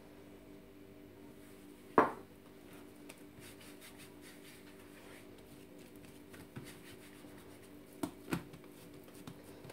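A small glass of olive oil set down on a wooden counter with one sharp knock about two seconds in, then faint rubbing of a hand spreading oil over a wooden cutting board, and two soft thumps near the end as a ball of bread dough is put down on the board. A faint steady hum runs underneath.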